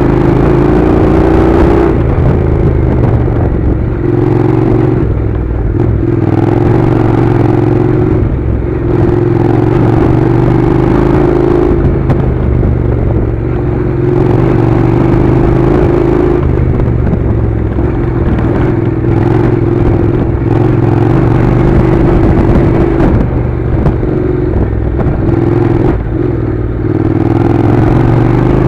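Honda NC700 motorcycle's 670 cc parallel-twin engine running steadily while riding a gravel dirt track. Its pitch dips and recovers a little every few seconds as the throttle is eased and reopened.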